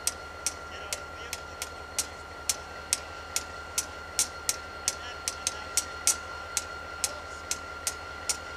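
Sharp, irregular clicks, about three a second, over a steady low rumble from a distant idling diesel freight train and a thin steady high tone.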